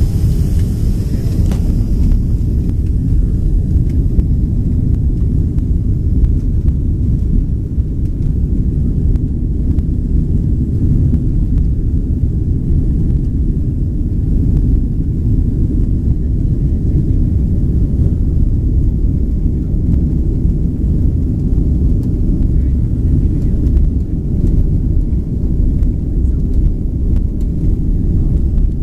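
Boeing 767-300 cabin noise during the takeoff roll: a loud, steady low rumble of the engines and the wheels on the runway, heard from inside the cabin.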